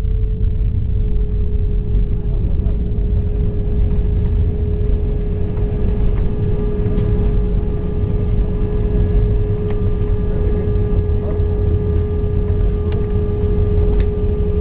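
Airbus A320 cabin noise on the landing roll: the engines and the airframe on the runway make a loud, steady low rumble, with a steady whine held at one pitch over it.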